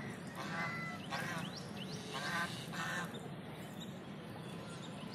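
Domestic waterfowl on a pond calling: four short calls about a second apart in the first three seconds, then a lull.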